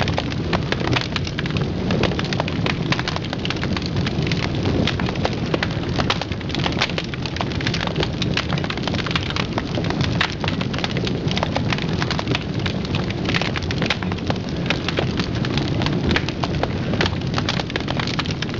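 Dense, steady crackling over a low rumble, with many sharp cracks close together; it starts abruptly.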